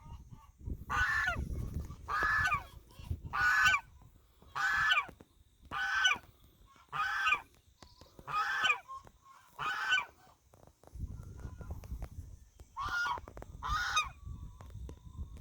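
Goose honking again and again, about one honk a second, pausing for a couple of seconds before a last few honks; a gander calling out as a guard over the hen flock.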